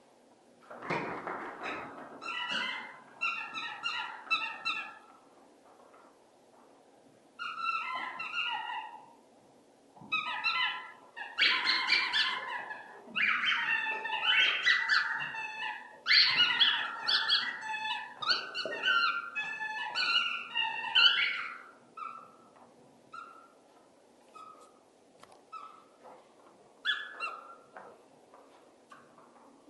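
A dog barking and yelping in repeated bouts of short, pitched calls. The bouts are busiest in the middle, then thin out to scattered single yelps over the last several seconds.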